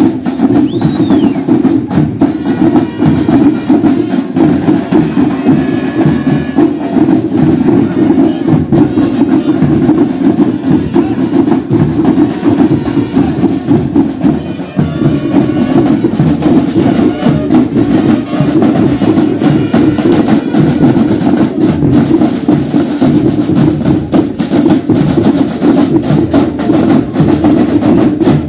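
Marching band playing a parade march: drums and percussion beating a steady, driving rhythm.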